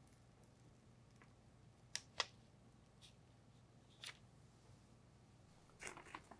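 Faint crackles of baking paper being peeled off the side of a set cheesecake over quiet room tone: two soft crinkles about two seconds in, a couple more singly, and a short cluster near the end.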